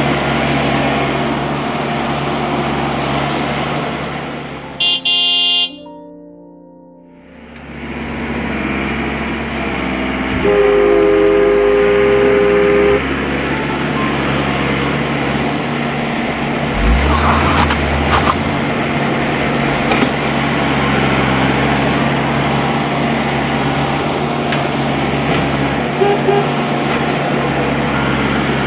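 A steady mechanical running drone, with a two-tone horn sounding for about two and a half seconds roughly a third of the way in. The drone drops away briefly a few seconds before the horn.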